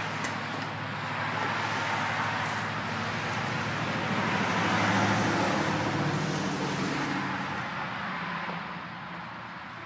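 A car passing by: tyre and engine noise swelling to a peak about halfway through, then fading away.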